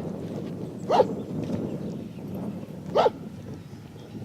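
A dog barking: two single loud barks about two seconds apart, one about a second in and one about three seconds in.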